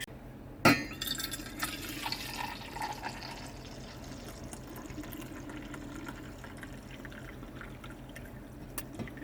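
A sharp clack about a second in, then water being poured into a container to make coffee, with small clinks over the next couple of seconds, settling into a low steady sound.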